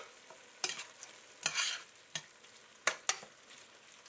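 Slotted metal spoon stirring and scraping against a stainless steel pot as ground beef with chopped onion, peppers and celery browns on medium-high heat, about five sharp scrapes over a faint sizzle.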